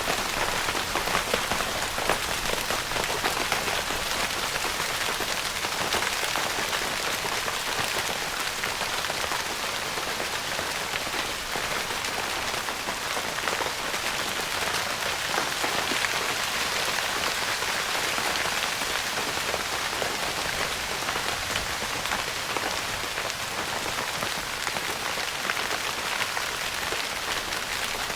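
Steady rain pattering on a tent's fabric roof, a dense, even patter of many small drops.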